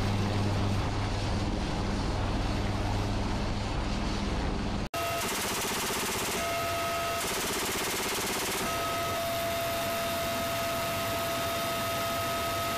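AH-1Z Viper attack helicopter running on the ground with its rotors turning, a steady low hum. About five seconds in it cuts abruptly to steady helicopter cabin noise in flight, with a high whine and a fast mechanical rattle.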